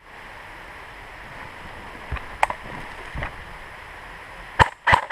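Airsoft electric rifle firing single shots: three sharp, loud cracks about a third of a second apart near the end, after a few fainter snaps over a steady rustling hiss.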